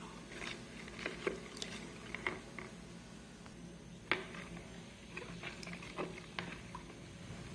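Metal spoon stirring dissolving gelatin in hot water in a plastic bowl: soft sloshing with irregular light clicks and scrapes of the spoon against the bowl, one sharper tap about four seconds in.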